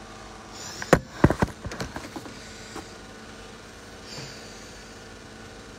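A quick flurry of sharp clicks and knocks starting about a second in, over a steady faint hum, then a soft brushing noise a little past the middle.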